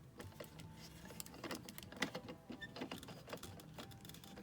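Light, scattered clicks and taps of a hollow hard-plastic toy motorcycle being handled, over a faint steady hum.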